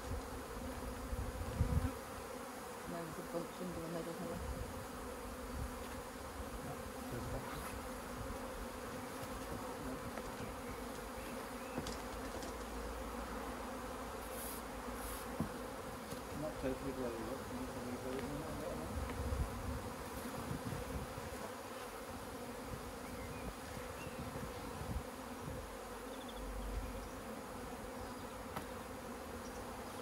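A disturbed swarm of honey bees in the air, many wings making a steady hum. A few dull thumps come about two seconds in.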